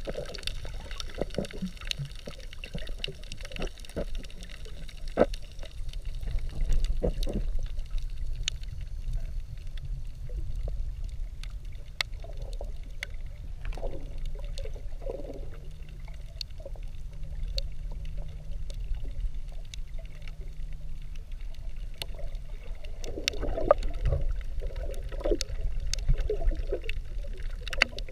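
Underwater recording: water sloshing and gurgling around the camera, over a steady low rumble, with scattered sharp clicks throughout.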